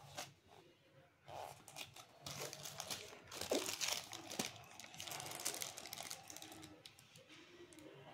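Clear plastic accessory bag crinkling as it is handled, with small knocks and rustles from the headphones being moved. The crinkling is busiest and loudest in the middle of the stretch.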